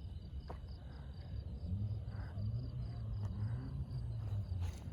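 Crickets chirping steadily, an evenly pulsing high trill, with a low rumble through the middle few seconds.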